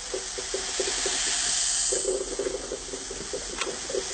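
Liquid toy detergent poured out of a small bottle: a steady hissing splash with uneven gurgles, a little louder about halfway through.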